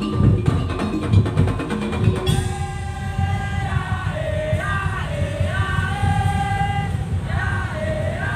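Madurese tong-tong (daul) music: drums and percussion beating a dense rhythm. A couple of seconds in, a high melody line of held, sliding notes comes in over the drumming.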